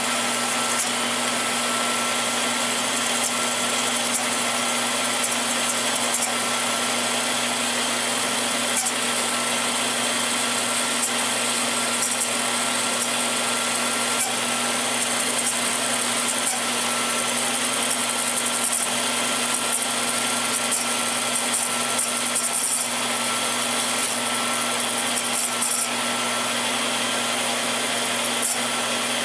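Flex-shaft rotary tool spinning a thin abrasive cut-off wheel that grinds into a hardened steel pin turning in a lathe. It gives a steady whine over a continuous grinding hiss, with a low hum underneath.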